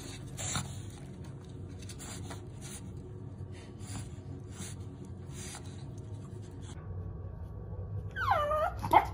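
Soft rustling and scratching in a cardboard box of crumpled packing paper. Near the end a chihuahua whines twice in a high voice: first a drawn-out cry that dips and rises in pitch, then a short one.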